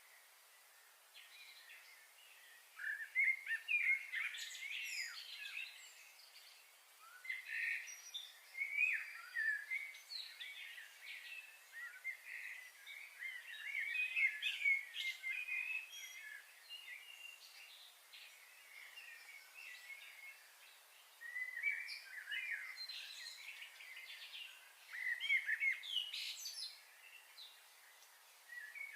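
Small birds chirping and twittering in quick, busy bouts that come and go, with short lulls in between.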